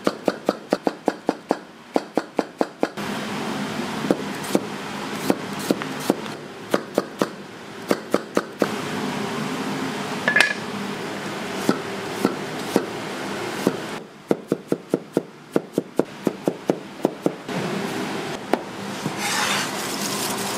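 Kitchen knife chopping on a cutting board: quick, even runs of strokes, about five a second, that stop and start again, with a steady kitchen hum between the runs.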